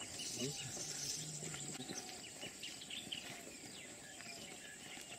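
Outdoor scrubland ambience: birds giving short repeated chirps over a steady high insect buzz.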